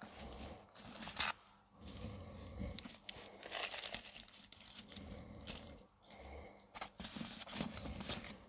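Gritty cactus potting mix of gravel, clay balls and coco peat crunching and rustling in uneven bursts as small square plastic pots are pushed and shuffled into it by hand, with a sharp click about a second in.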